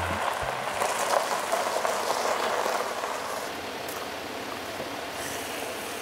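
Large SUV's tyres crunching slowly over loose gravel as it rolls in and stops, the crunch easing about halfway through into a steady low hiss.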